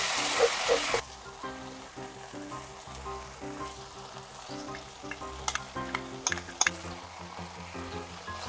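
Onions and tomato paste sizzling in hot clarified butter in a frying pan while being scraped with a wooden spatula; it cuts off suddenly about a second in. After that, soft background music with a few sharp clicks about five to six and a half seconds in.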